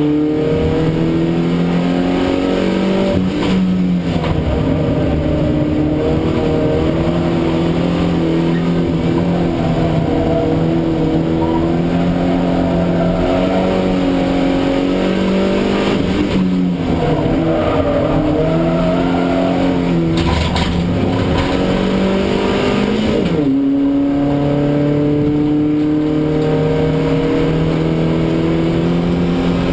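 Geely Panda race car engine heard from inside the cockpit, running hard at steady high revs. Its pitch drifts slowly and dips several times, most sharply about 23 seconds in, before settling again.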